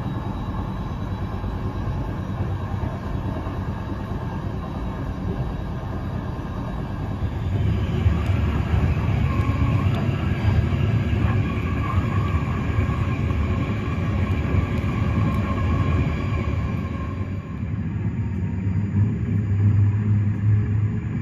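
A PKP Intercity Eurocity passenger coach running at speed: a steady rumble of wheels on rail, heard from inside the carriage. It gets louder and harsher about seven seconds in.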